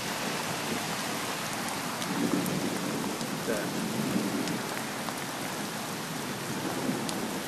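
Heavy rain pouring steadily, an even hiss of the downpour on the wet street.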